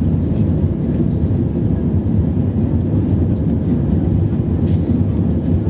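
Steady low roar of jet engines and rushing air heard inside the cabin of an Airbus A320-family airliner climbing shortly after takeoff.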